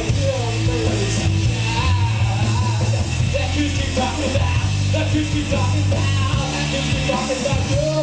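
Rock band playing live: electric guitar, bass guitar and drums, loud and steady, with a singer's voice over the top.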